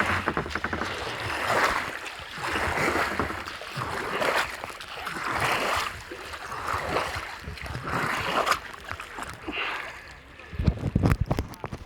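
Kayak paddle strokes in the water: a splashing swish comes in a steady rhythm, about one every second and a half. A few low thumps follow near the end.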